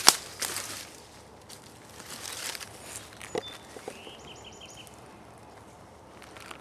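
Footsteps through brush on a hike, loudest in the first second, with a few fainter steps later. About four seconds in a bird gives a short call of four or five quick high notes.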